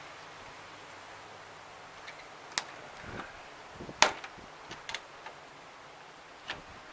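Glass lid of a home-made solar still being lowered shut and its metal latches on the wooden frame snapped closed: a handful of short sharp clicks, the loudest about four seconds in.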